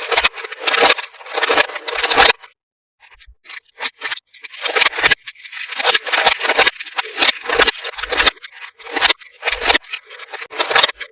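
Toy packaging being handled and opened: irregular crinkling and scraping in quick bursts, with a short pause about two and a half seconds in.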